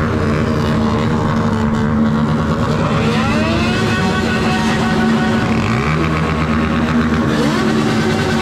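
Motorcycle engines running over a steady hum, revving up several times with the pitch rising in sweeps.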